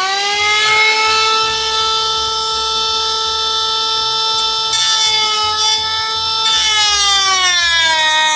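A small high-speed power tool with a cutting blade, whining at a steady high pitch as it cuts into a vinyl window frame. The pitch sags a little over the last couple of seconds, as the blade comes under load.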